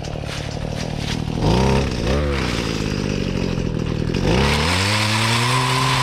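Two-stroke engine of a gas pole saw idling, blipped up briefly about a second and a half in, then revved up about four seconds in and held at high speed while cutting a branch.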